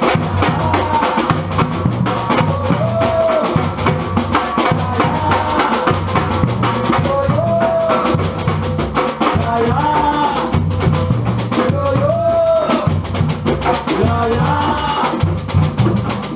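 Batucada percussion ensemble playing a steady, driving groove: deep bass drums in a repeating pattern under dense snare and rim strikes, with short gliding pitched notes over the top.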